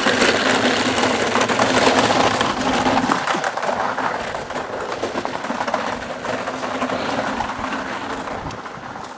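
Small pedal go-kart's plastic wheels rolling over a rough track, a steady rattling rumble that fades as the kart moves away.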